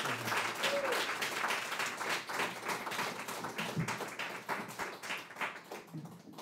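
Audience applauding with a dense patter of hand claps that thins out and fades away near the end.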